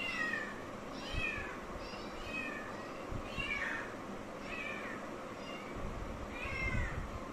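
Kitten meowing repeatedly: a string of short, high-pitched meows, roughly one a second.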